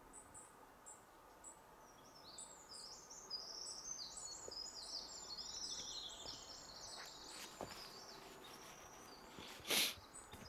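A small songbird singing a fast, high, warbling song over quiet forest ambience, with a few short high chirps before it. A few soft knocks of footsteps on the wooden boardwalk, and one brief loud rush of noise near the end.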